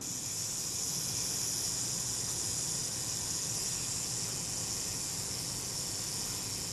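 Self-timer (delay action) of a Kodak Retina IIIc's leaf shutter running down with a steady high buzz. It has been cleaned in naphtha and lubricated with graphite powder, and it runs smoothly and evenly.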